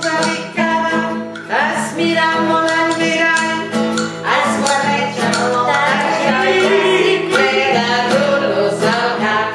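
A song: a voice singing over acoustic guitar accompaniment.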